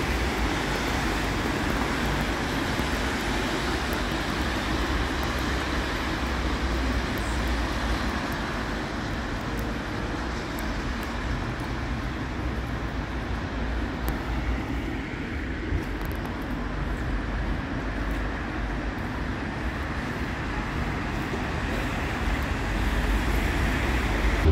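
Steady city street traffic noise: a continuous wash of road vehicles with a low rumble.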